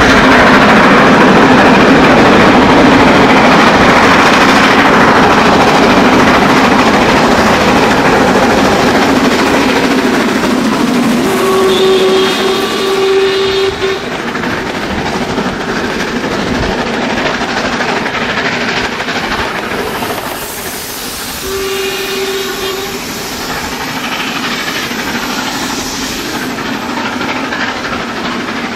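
Harz metre-gauge steam locomotive working flat out, its exhaust loud as it passes close. Its hoarse whistle sounds twice, a blast of a couple of seconds about 12 seconds in and a shorter one about 22 seconds in. Meanwhile the coaches roll by and the train fades into the distance.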